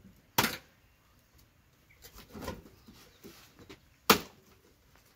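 Machete chopping through large cassava roots: two sharp chops, one just after the start and one about four seconds in, with softer knocks between them.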